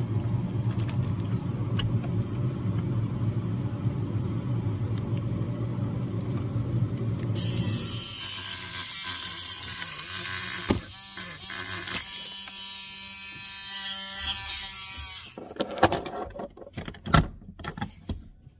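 Small hand-held electric tool motor running, used to grind a burr smooth on a tractor part. It starts as a steady low hum, changes at about eight seconds in to a higher, hissing whine, and stops near the end, followed by a few sharp knocks.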